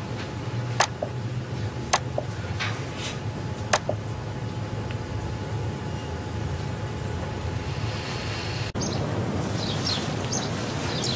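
Three sharp clicks about a second apart, a laptop being clicked through photos, over a steady low hum of shop room tone. Near the end it gives way to outdoor background with birds chirping.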